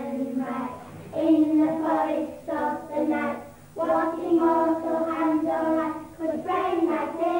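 Children singing a slow tune in long held notes. The song comes in several phrases with short breaks between them.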